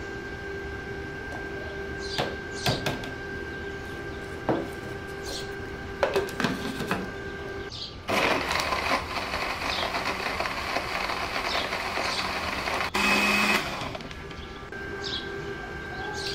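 Electric blender running for about five and a half seconds, blending milk and dates, then stopping. Before it starts there are a few light clicks and knocks.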